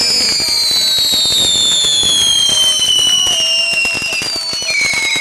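Ground fireworks and firecrackers crackling and popping in a dense, rapid string, with a high whistle falling slowly in pitch.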